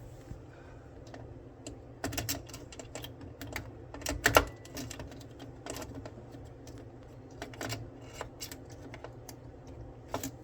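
Scattered light clicks and plastic taps of hands handling a desktop PC's case and parts, with a louder cluster of knocks about four seconds in.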